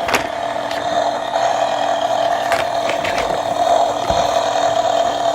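Toy motorcycle's small built-in motor running with a steady whirring buzz while its mist exhaust is on, with a few light clicks of plastic parts.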